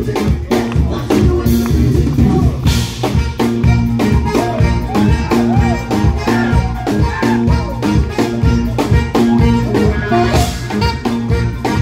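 Live band playing an up-tempo number: drum kit keeping a steady beat under bass guitar and keyboards, with an alto saxophone playing bending melodic lines.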